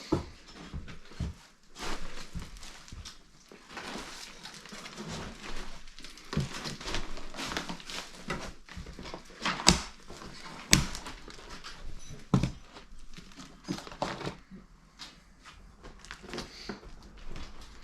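Footsteps and handling noises in a cluttered abandoned building: irregular knocks, thuds and rustles from walking over debris and moving things about, with two sharp knocks about a second apart a little after halfway.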